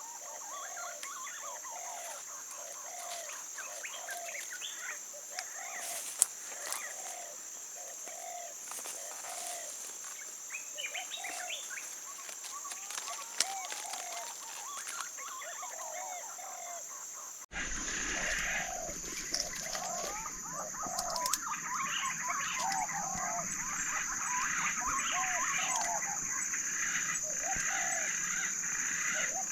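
Birds calling: short arched notes repeated about once a second, with other chirps above them, over a steady high-pitched whine. About two thirds of the way through the sound cuts abruptly to a louder, busier chorus of calls.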